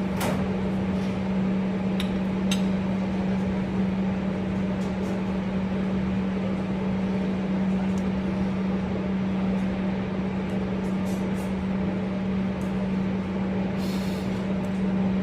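A steady low machine hum of one pitch holds under a few faint clicks, a couple near the start and a cluster near the end.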